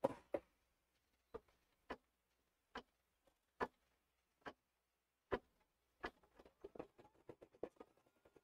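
Computerized embroidery machine starting to stitch: faint separate needle-stroke clicks about a second apart, becoming quicker clicking from about six seconds in, with a faint motor whine that rises and then holds near the end.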